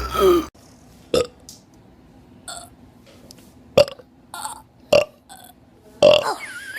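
A run of human burps: a burp trailing off just after the start, several short sharp burps, and a longer, drawn-out burp near the end.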